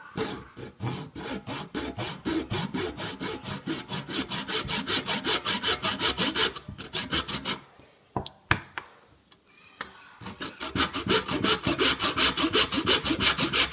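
Fine-toothed handsaw sawing into a clamped Titleist Pro V1 golf ball in quick back-and-forth strokes, several a second. The sawing stops for about two seconds in the middle, with a couple of clicks, then starts again.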